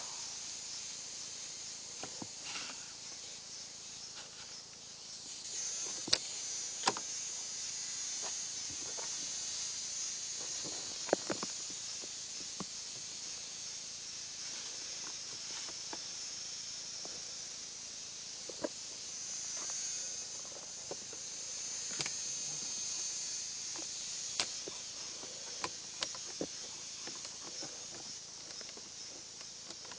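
A steady high-pitched hiss that swells for a while in the middle, with scattered sharp clicks and small knocks throughout.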